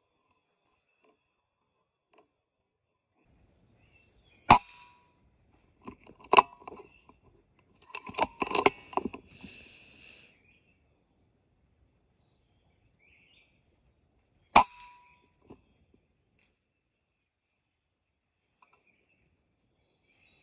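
Two air rifle shots about ten seconds apart, each a sharp crack with a short ringing tail. Between them comes a run of clicks and clatter.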